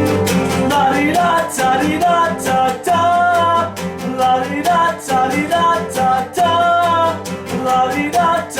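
Acoustic guitars strumming a steady rhythm, with a gliding melody line above.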